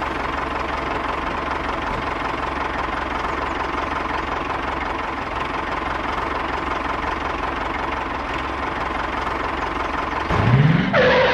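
An engine runs steadily at an even level. About ten seconds in, a loud rising sweep cuts in over it.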